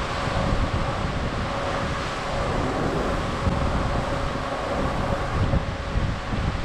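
Gusty wind buffeting the microphone over the steady rush of the sea along a cruise ship's hull, with a faint steady hum underneath.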